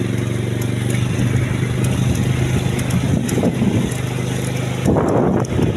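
Motorcycle engine running steadily, with a rougher noisy surge about three and a half seconds in and another about five seconds in.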